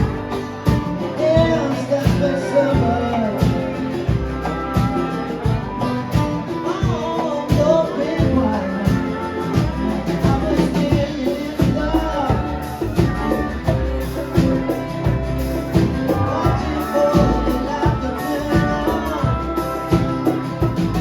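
A live band playing a song, with a singer's voice over guitar and a steady beat.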